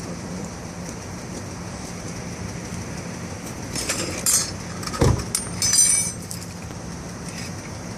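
Metal clinking and jangling of tire-changing tools, in short clusters about four and six seconds in, with a dull thump between them.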